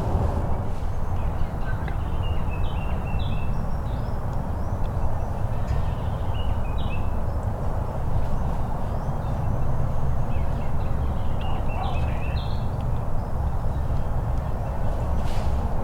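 A songbird singing three short phrases of high stepped notes, a few seconds apart, over a steady low rumble.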